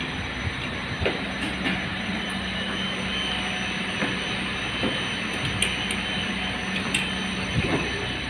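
Old elevator machinery in its machine room running steadily: a continuous drone with a low hum and scattered metallic clicks and knocks. The hum stops near the end.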